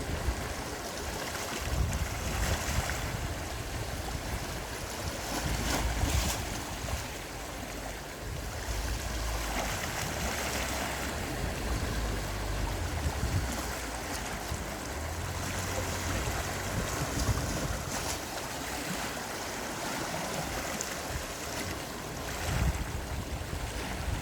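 Gentle sea waves washing in, swelling and easing every few seconds, with wind rumbling on the microphone.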